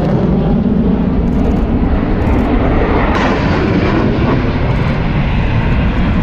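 A pair of jet aircraft flying overhead: loud, steady jet engine noise that grows brighter and hissier about three seconds in.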